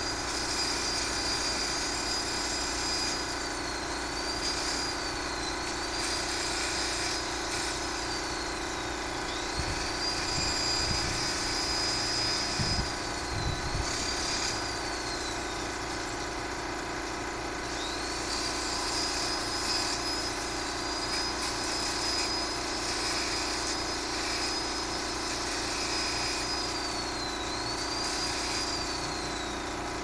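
Corded electric drill running on metal, its motor whine sagging in pitch each time it bogs under load and climbing back as the load eases, with a short pause near the middle.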